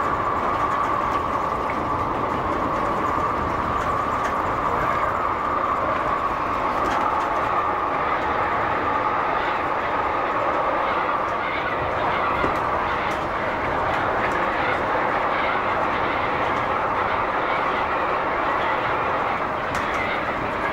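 Calgary C-Train light rail vehicle (Siemens-Duewag U2) running along the track, heard from the driver's cab: a steady rumble of wheels on rail with a steady high whine over it and a few faint clicks.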